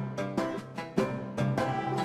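Background music with a steady beat: a pitched instrument and percussion striking notes about twice a second.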